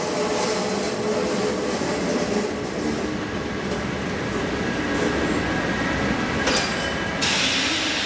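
Paris Metro MF67 steel-wheeled train pulling into a station and slowing to a stop, its wheels and running gear rumbling on the rails. About seven seconds in, a hiss starts suddenly.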